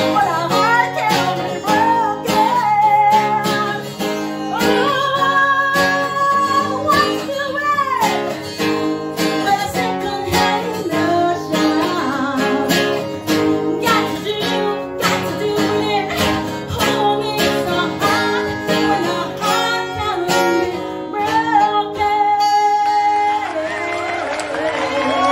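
A woman singing a pop-rock song over guitar and a band with a steady beat, holding some long notes with vibrato.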